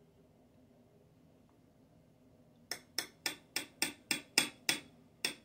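Metal spoon clinking against a bowl as pancake batter is stirred: near silence at first, then from about halfway a quick run of sharp clinks, about three a second.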